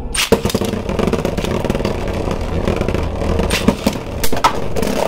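Two Beyblade Burst spinning tops, one of them 3D-printed, launched into a clear plastic stadium, then spinning and grinding across its floor with a steady rattling whir. They clash with several sharp clacks in the last second and a half.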